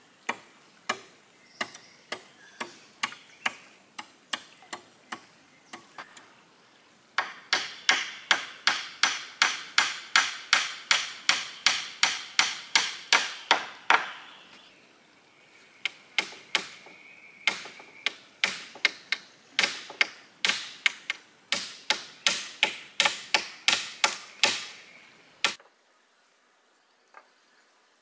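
A blade chopping wood with a steady run of sharp blows, about two to three a second. The blows start light and spaced, come faster and louder from about a quarter of the way in, pause briefly past the middle, resume, and stop a few seconds before the end.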